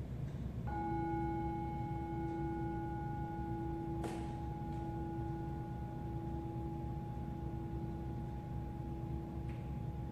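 A singing bowl struck once, ringing on with a low hum and several higher overtones that slowly fade. A brief knock comes about four seconds in.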